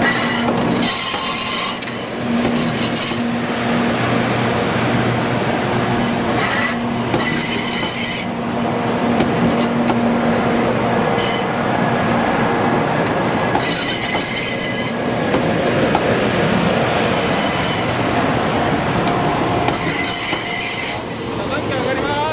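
Doctor Yellow, the 923-series Shinkansen inspection train, running slowly through the works yard. Its wheels squeal on the rails in repeated bursts over continuous running noise.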